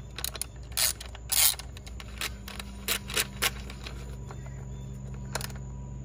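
8 mm socket on an extension tightening an ignition coil hold-down bolt: scattered metallic clicks and scrapes from the tool, with two louder, longer scrapes about a second and a second and a half in.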